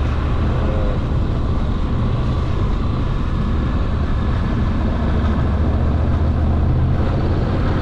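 Motorcycle engine running steadily under way, a low hum with an even rush of noise over it.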